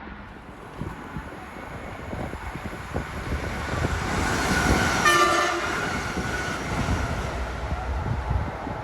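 A train approaching and passing with a rumble of wheels on rail, growing louder. It gives one short horn blast about five seconds in.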